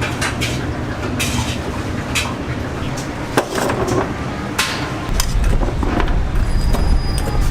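Clattering and sharp knocks of cooking utensils and pans, with background voices; a low rumble sets in about five seconds in.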